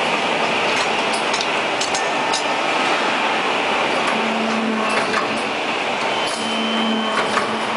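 Factory noise at a horizontal hydraulic riveting clamp as a steel truck frame rail is worked through it: a steady din with scattered sharp metal clinks, and a short low hum twice in the second half.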